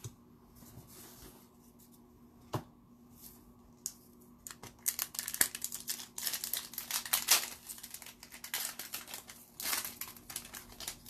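Wrapper of a hockey trading card pack crinkling and tearing as it is opened by hand, after a quiet start with a single click; the crinkling starts about halfway through and goes on in dense bursts.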